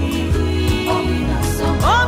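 A song with a steady bass beat and a singing voice. Near the end the voice slides up into a held note.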